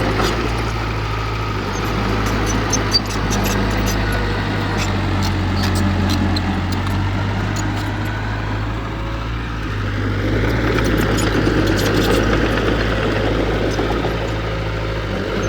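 Heavy diesel engine of earthmoving equipment running steadily, easing off briefly past the middle and picking up again, with one sharp knock about three seconds in and faint scattered clicks.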